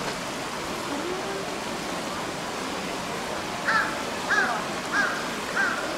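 A crow cawing four times in a row, short arched calls about two-thirds of a second apart, over a steady hiss.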